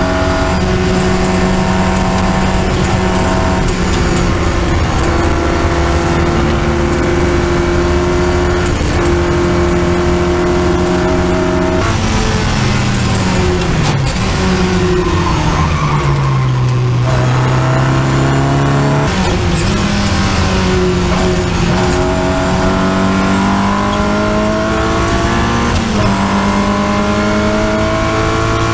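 Triumph Spitfire race car's four-cylinder engine heard from on board, held at high revs. About twelve seconds in the revs fall away going into a corner, then climb steadily again under acceleration, with a brief dip near the end.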